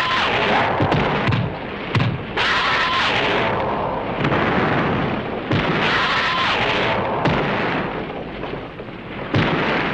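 Explosion and fire sound effects: a continuous rushing roar of flames broken by several sudden blasts.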